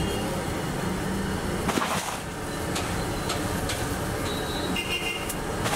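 Street traffic running with a steady low rumble, a vehicle horn sounding a little over four seconds in, and a few light clicks.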